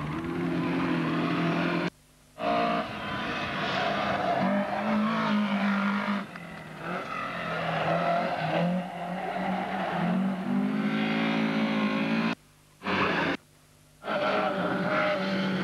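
Race car engines climbing at high revs, the pitch rising and falling again and again as they accelerate and change gear. The sound cuts out briefly twice.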